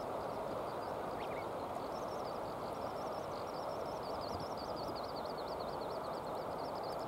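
Steady rush of a shallow river running over stones. Over it a small bird sings in quick, high twittering notes from about two seconds in, with one short call just before.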